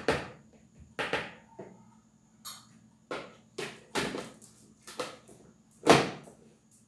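Separate knocks and scrapes of a utensil against a mixing bowl, then the bowl being set onto a stand mixer's base and fitted in place, with the loudest clunk about six seconds in.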